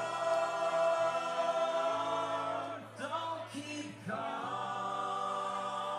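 Several male voices singing long held notes together in close harmony, a live band's vocal chord with a steady low note beneath it. The chord breaks off briefly about three seconds in and again a second later, then is held again.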